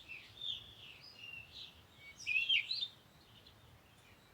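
Birds singing: short phrases of quick, gliding chirps and twitters. The loudest phrase comes a little past the middle, and it falls quiet near the end.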